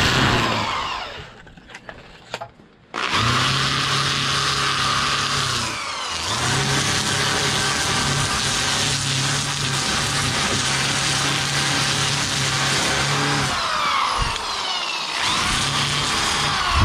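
DeWalt corded drill spinning a Sand-o-flex flap sanding wheel against a chainsaw-carved wooden bear, sanding off the fuzzy wood fibres before torching. The drill runs at a steady whine and winds down about a second in, then starts again. It winds down once more a couple of seconds before the end and briefly starts up again.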